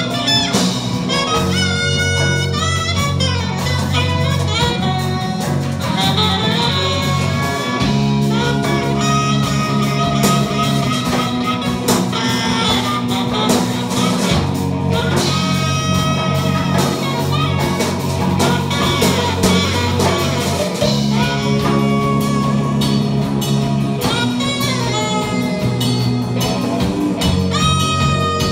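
Live band playing an instrumental groove on electric guitar, bass guitar, drum kit, djembe and saxophone, with melodic lines over a steady bass line.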